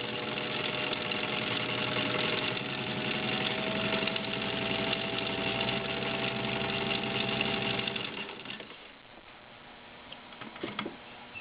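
Singer 15-91 sewing machine with its potted direct-drive motor running at a steady speed and stitching, then winding down and stopping about eight seconds in. A few light clicks follow.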